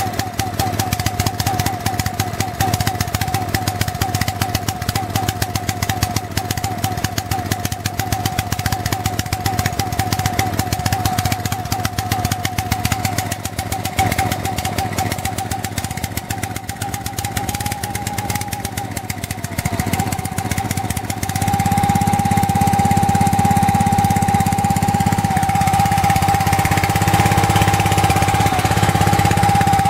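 Small air-cooled OHV stationary petrol engine running steadily on a naphtha-and-alcohol cleaning solvent instead of petrol. About two-thirds through it dips briefly, then runs louder and steadier.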